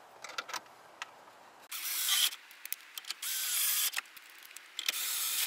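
Cordless drill/driver running in three short bursts, each with a faint motor whine, driving in the screws that secure the radio display in the dash.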